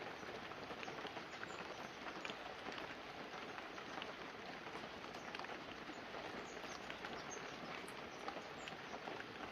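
Light, calm rain falling steadily on banana leaves and a roof, with the patter of individual drops ticking all through it.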